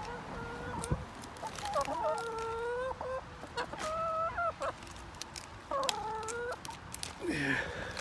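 Chickens calling while they feed on cabbage: about four drawn-out calls of fairly even pitch, the happy noises hens make over a favourite food, with a few light ticks between them.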